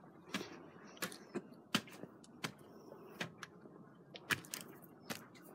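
Footsteps climbing wooden steps: a sharp tap about every three-quarters of a second, with a quick cluster of taps about four seconds in.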